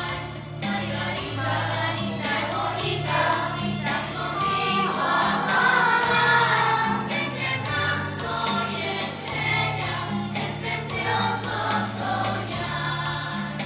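Children's choir singing together over instrumental accompaniment that holds low notes, changing about every second.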